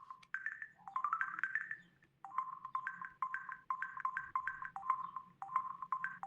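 Ringtone melody playing from an LG KG800 Chocolate mobile phone's built-in speaker: quick, bright electronic notes, several a second, with a short break about two seconds in.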